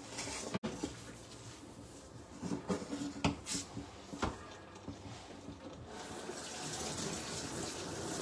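A few knocks and clatters from kitchen work, then from about six seconds in a kitchen tap runs steadily into the sink while the work counter is cleaned.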